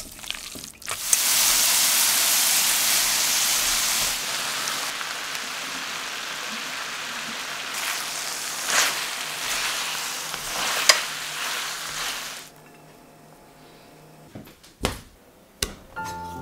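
Stir-fried noodles with pork and bok choy sizzling in a hot wok while being tossed with chopsticks, with a few sharp crackles; the sizzle is loudest for the first few seconds and stops about twelve seconds in. A couple of short knocks follow near the end.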